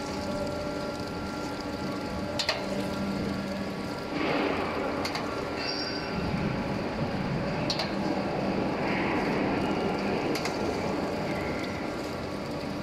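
M7150 horizontal-spindle surface grinder running: a steady hum from the wheel spindle, with a sharp click about every two and a half seconds as the reciprocating table reverses. Stretches of hissing grinding noise come as the wheel passes over the metal workpieces under coolant.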